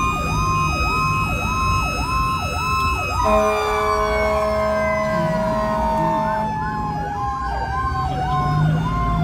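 Fire rescue truck's electronic siren yelping at about two sweeps a second over a second, slower siren tone that rises slightly and then falls steadily away, with the truck's engine rumbling underneath. About three seconds in, the yelp stops for about three seconds while a horn sounds a steady chord, then the yelp resumes.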